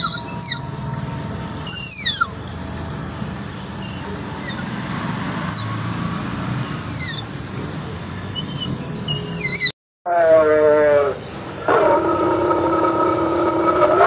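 Tapir calling with a series of short, shrill whistles that slide downward in pitch, a few every second or two. About ten seconds in, the calls stop and a steady pitched sound with several tones takes over.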